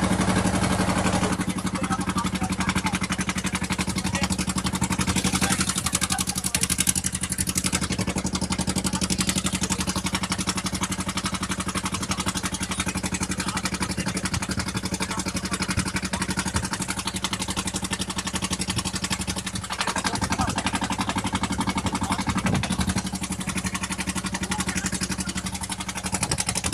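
Engine of a wooden river boat running steadily under way, a low hum with a fast, even beat that does not change.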